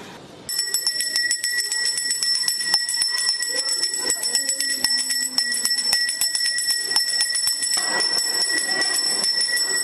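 School bell ringing continuously: a high metallic ring with rapid, closely repeated strikes, starting about half a second in.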